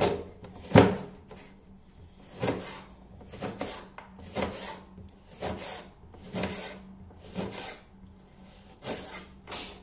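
A dull kitchen knife cutting through an orange and striking a plastic cutting board, about one cut a second, the loudest about a second in.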